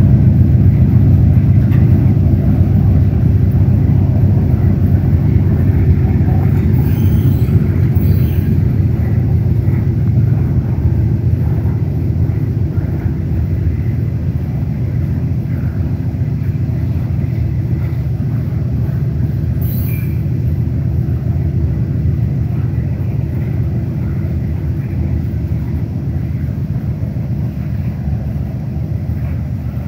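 CSX coal hopper cars rolling past, a steady low rumble of steel wheels on rail that slowly fades as the train goes by.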